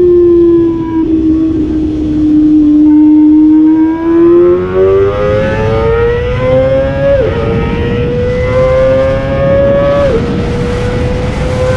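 Kawasaki ZX-25R's 249 cc inline-four engine running at high revs under way, its high-pitched note easing down slightly, then climbing steadily as the bike accelerates. Twice in the second half the pitch drops sharply and climbs again: quick upshifts. A rumble of wind and road noise runs underneath.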